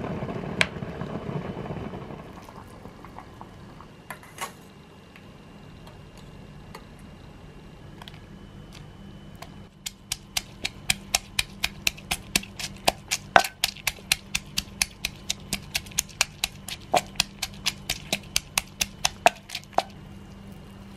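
Pestle pounding dried chillies in a clay mortar: a steady run of sharp knocks, about three to four a second, for about ten seconds in the second half. Near the start a rocker switch clicks on a small electric cooker.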